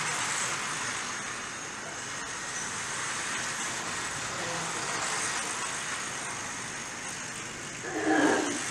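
OO gauge model trains running on the layout's track, a steady whirring hiss of motors and wheels on rail. Near the end there is a brief, louder pitched sound that falls in pitch, lasting about half a second.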